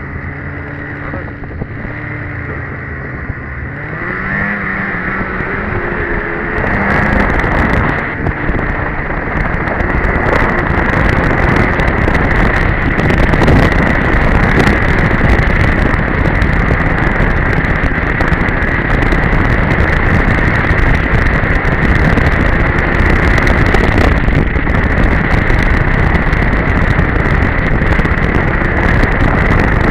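Polaris Edge two-stroke snowmobile engine pulling away, its pitch rising over the first few seconds. It then runs hard and steady at speed for the rest of the time.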